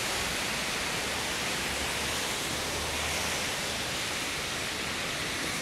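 Heavy torrential rain falling on the street, a steady hiss, with a low rumble for a couple of seconds in the middle.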